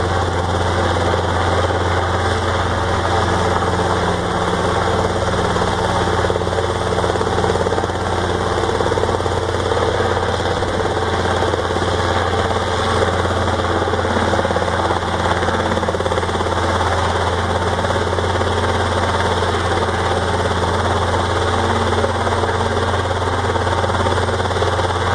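Robinson R22 Beta II helicopter running steadily. Its four-cylinder Lycoming O-360 piston engine and two-blade main rotor make a continuous drone as the helicopter settles from a low hover onto the pad.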